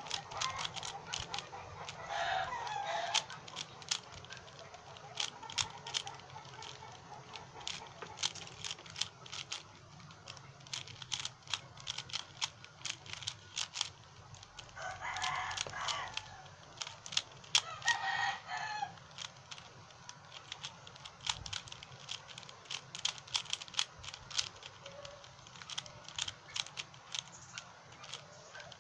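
A plastic 3x3 Rubik's cube being turned fast by hand: a quick, irregular run of clicks and clacks as the layers snap round. Three short animal calls sound in the background, about two seconds in and twice more past the middle, louder than the clicking.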